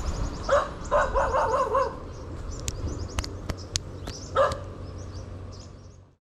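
An animal calling a few times in short pitched cries with a wavering pitch, over a steady low rumble, with a few sharp clicks in between; the sound fades out near the end.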